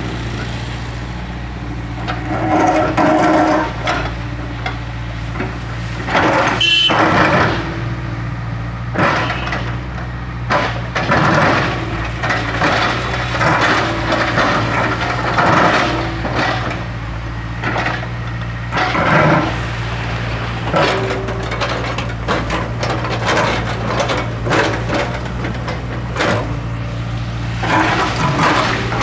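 Tracked excavator's diesel engine running steadily, with irregular knocks, scrapes and cracks as its bucket works against broken concrete slabs.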